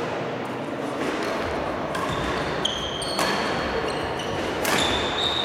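Badminton rally: about three sharp racket strikes on the shuttlecock, the last one the loudest, with sports shoes squeaking briefly on the court floor from a little after midway.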